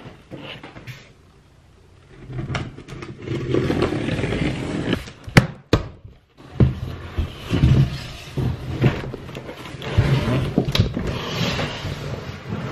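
A large cardboard shipping box being opened by hand. After about two seconds, cardboard and packing rustle and scrape irregularly, with two sharp snaps a little before the middle. Near the end comes more scraping as the boxed machine is pulled out against the cardboard.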